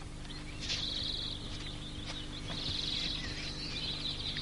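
Three or four short, high-pitched trilled chirps, each about half a second long, repeating through the background nature ambience over a steady low hum.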